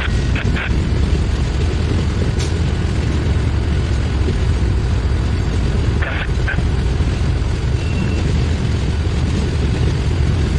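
Steady low rumble of Norfolk Southern diesel locomotives running in a rail yard, with wind buffeting the microphone.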